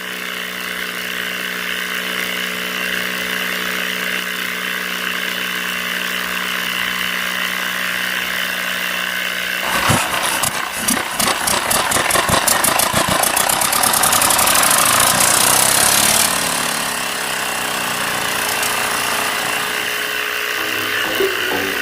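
Small electric motor of a homemade toy drilling machine running with a steady hum. About ten seconds in, a louder rattling grind joins, with a ticking that speeds up. It eases back to a steadier whir about six seconds later.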